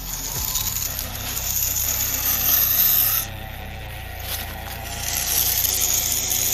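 Gravel and dirt scraping and rattling as radio-controlled construction models move it. The sound comes in two swells with a short break about three seconds in.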